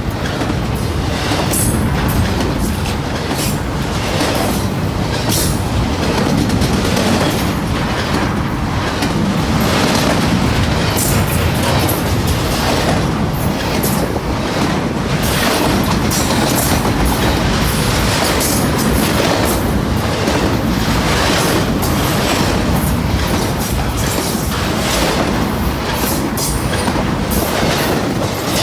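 Freight train cars rolling past with a steady rumble, their steel wheels clacking over rail joints in a continuing series of clicks.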